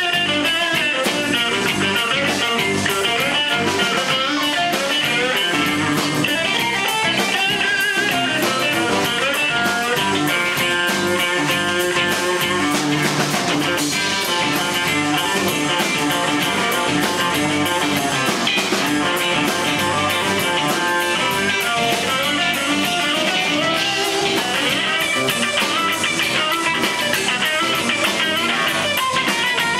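Live blues band playing an instrumental passage: electric guitar leads over bass and drum kit, with no vocals.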